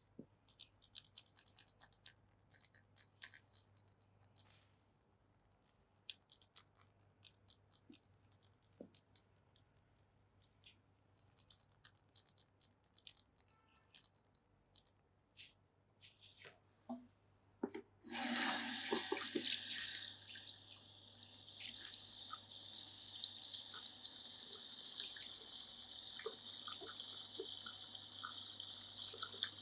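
Wet, squelching clicks of hands massaging a face, coming in quick irregular runs. About 18 seconds in, a handheld shower sprayer at the shampoo basin turns on and water runs steadily over the face, with a short dip a couple of seconds later.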